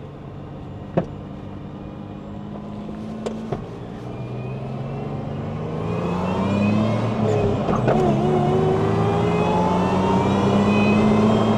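1998 Toyota Tacoma's TRD-supercharged engine running at low revs, with two sharp clicks early on, then accelerating from about halfway so that it grows louder and rises in pitch, with a faint high whine climbing along with it.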